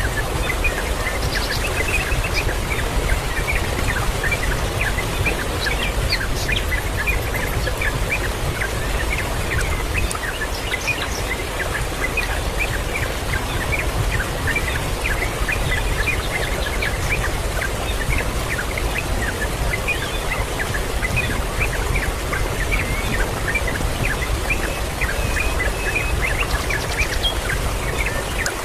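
Many birds chirping, with short high calls following one another throughout, over a steady low rumble.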